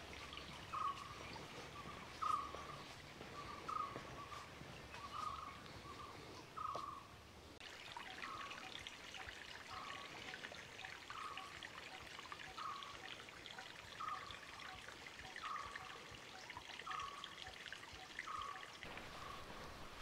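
A bird repeating a short, slightly falling call note over and over, about one or two a second and often in pairs, over a faint steady background hiss.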